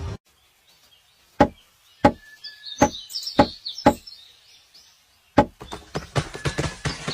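Woodpecker pecking at wood: five single sharp knocks a little over half a second apart, then after a pause a quicker run of taps near the end.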